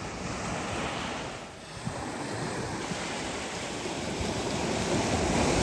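Small sea waves breaking and washing up a sandy beach: a steady rushing surf that dips briefly about a second and a half in and swells again near the end.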